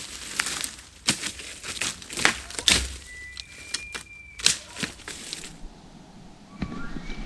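Crackling and crunching like dry brush and leaves being crushed, sharp snaps several times a second, with a faint high whistle held for about a second near the middle. Near the end the sound changes: the high whistle of an elk bugle begins, climbing in steps.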